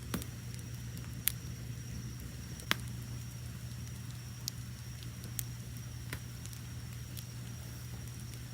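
Wood fire burning with a steady low roar and sharp crackles and pops every second or so, the loudest about a second and about three seconds in. Crickets trill behind it on one high, steady note.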